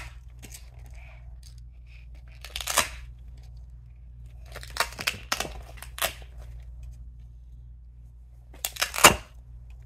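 Hook-and-loop (Velcro) fastener dots ripping apart as laminated picture cards are pulled off a page one at a time: several short rips, the loudest near the end.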